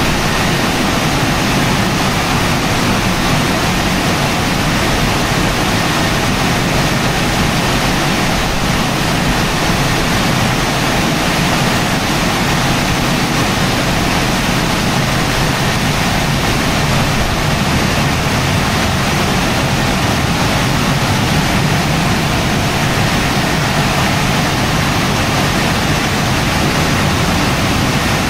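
Tammermatic T700 car wash's drying blowers running in the drying stage at the end of the wash program: a loud, steady rush of air.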